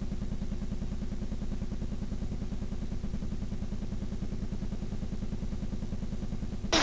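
An engine running steadily, heard as a low rumble with a fast, even pulse and little high-pitched sound.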